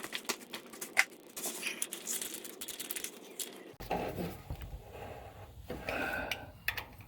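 Hand tools and metal parts clicking, tapping and scraping as a fitting on the clutch hydraulic line is worked tight. A low steady hum comes in about halfway through.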